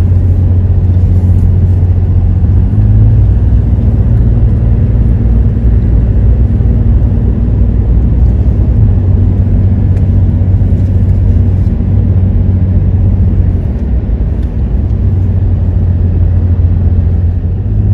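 A car driving, heard from inside the cabin: a steady low rumble of engine and tyre noise.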